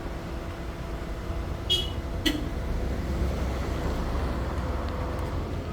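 Road traffic: a vehicle engine's steady low rumble, with a short high beep about two seconds in, followed by a sharp click.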